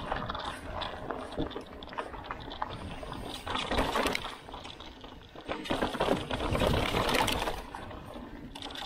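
Bicycle rolling along a forest trail: tyre noise on the dirt surface, rattling, and wind buffeting the microphone. It gets louder twice, at around four seconds and from about five and a half to seven and a half seconds.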